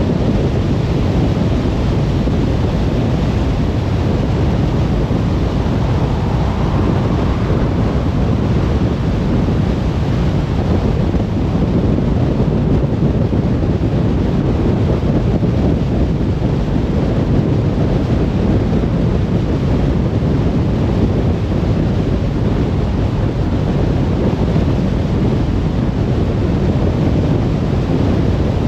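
Steady road noise of a car cruising on a motorway: an even, low rush of tyres and wind with no distinct events.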